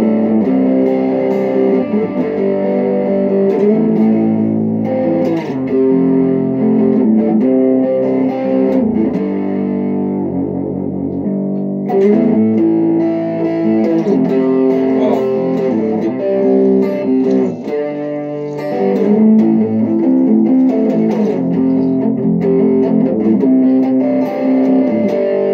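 Tagima electric guitar on its middle pickup, played through an amp's distortion channel: a rhythm part of held, distorted chords that change every second or so.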